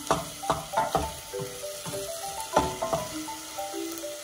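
A wooden spoon stirring squid as it sautés in a stainless steel pot, scraping and knocking against the pot in short uneven strokes over a light sizzle. Soft background music with a slow melody plays along.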